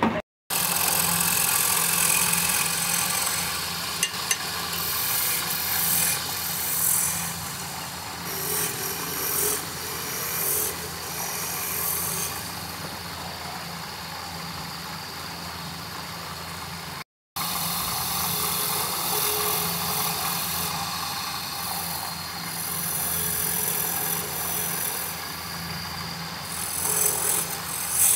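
Wood lathe running with a steady motor hum while a turning tool cuts the spinning wood blank, the cutting noise coming and going in uneven bursts. The sound cuts off briefly twice.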